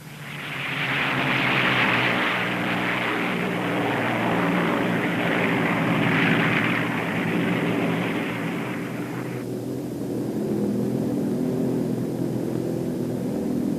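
Propeller airplane engines running with a steady drone under a loud rushing hiss. The hiss builds over the first second and cuts off suddenly about nine and a half seconds in, leaving the engine drone.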